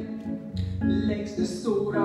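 Live acoustic guitar accompanying a violin in a tune, with notes changing about every half second and a wavering held note near the end.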